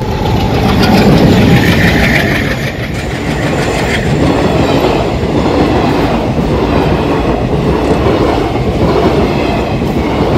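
Diesel-hauled Indian passenger train passing close by: loud rumble and clickety-clack of the coaches' wheels on the rails. It starts abruptly, is loudest in the first couple of seconds, then runs on steadily as the coaches roll past.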